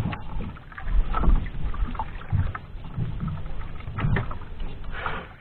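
Water lapping against the hull of a small outrigger fishing boat at sea, with irregular low knocks every second or two.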